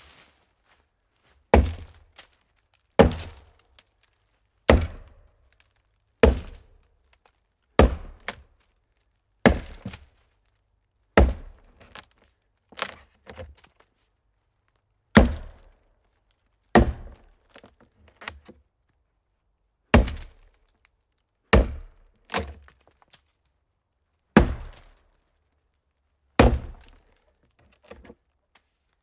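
Axe chopping into a hollow tree trunk: about fifteen heavy strikes, one every second and a half or so, each a hollow thunk with a short tail, with a few lighter knocks in between.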